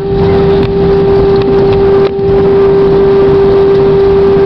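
Jet airliner cabin noise on the landing roll: a loud, steady roar of engines and rushing air with a strong steady hum, briefly cut off about two seconds in.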